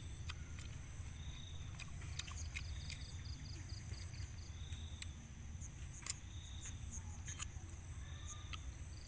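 Crickets and other night insects chirping steadily in repeating trains over a low steady rumble, broken by a few sharp clicks, the loudest about six seconds in.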